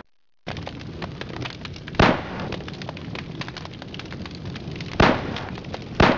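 Revolver shots fired with blanks from horseback in cowboy mounted shooting: three sharp, loud shots, about two seconds in, about five seconds in, and another a second later, with a patter of small clicks between them.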